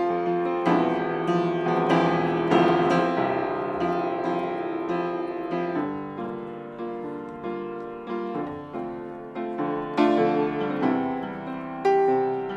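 Upright piano being played solo, notes and chords struck every half second or so and left to ring out.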